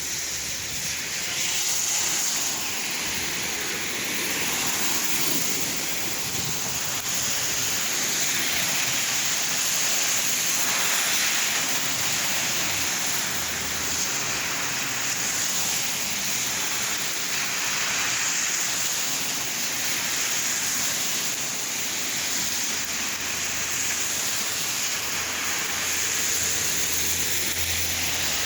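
Steady rain falling and splashing: a continuous, even hiss of water with gentle swells in level.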